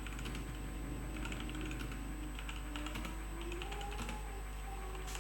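Typing on a Leaven K620 mechanical keyboard: a run of quick, light key clicks.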